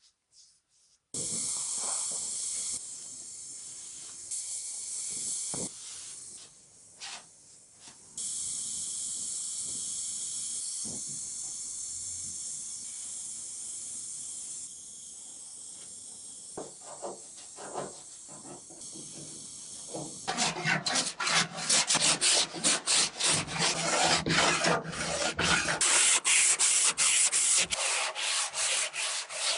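Sanding: a steady rasping hiss with a few short breaks, then from about two-thirds of the way through, quick back-and-forth strokes at about three a second.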